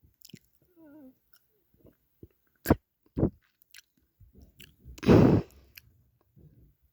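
Small close-up noises near the microphone: a faint brief hum about a second in, two sharp clicks a half-second apart near the middle, and a short breathy puff a little after five seconds.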